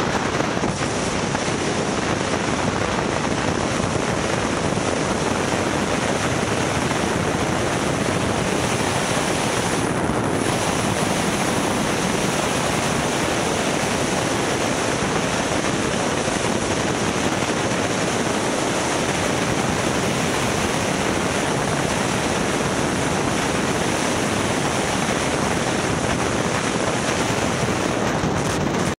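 Steady wind rush over the microphone of a camera on a BMW S1000XR motorcycle being ridden, blended with engine and road noise; no distinct engine note stands out.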